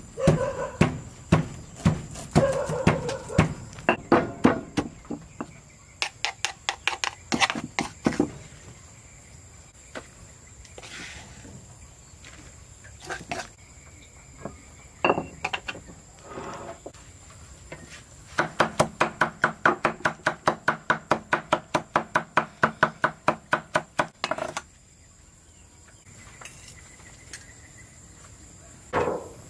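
Kitchen utensils knocking during food preparation: irregular sharp strikes and clatter, then a steady run of about four ringing strikes a second for some six seconds in the second half.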